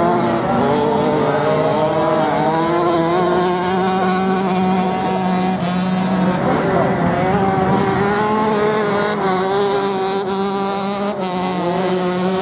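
Several off-road motorcycle engines revving, their pitch rising and falling as the bikes accelerate and back off through a turn on the sand.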